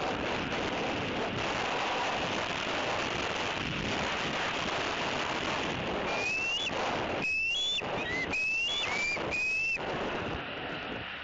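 Wind buffeting the nest-cam microphone throughout. About six seconds in, a bald eagle calls with a run of about five short, high whistled notes, each rising slightly in pitch.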